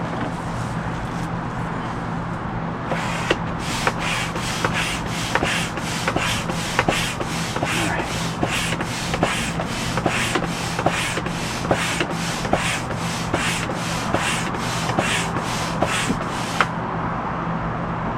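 Manual air pump inflating an inflatable raft: regular rushing strokes of air, about two a second, starting a few seconds in and stopping shortly before the end, over a steady low hum.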